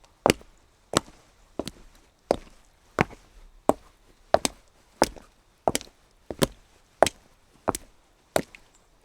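Footsteps of shoes walking at an even pace on wet cobblestones, sharp clicking steps about one and a half a second, some heard as a quick double tap.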